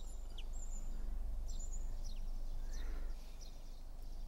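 Small birds chirping on and off, short high chirps, some dropping in pitch, over a low steady background hum.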